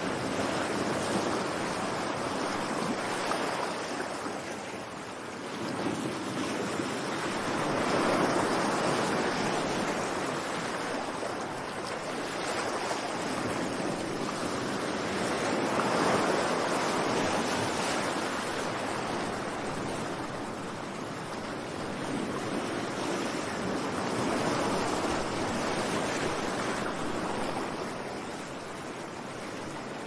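Sea surf washing onto a beach: a continuous rush of breaking waves that swells and fades about every eight seconds.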